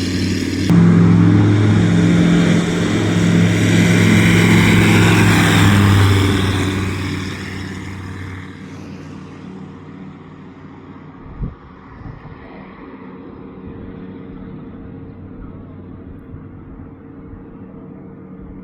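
Aeroprakt A22L Foxbat light aircraft's propeller engine running loud and steady for the first several seconds, then fading away as the aircraft moves off into the distance. A faint engine hum stays, with a single short thump about halfway through.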